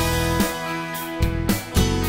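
Instrumental background music: plucked notes over a low bass line.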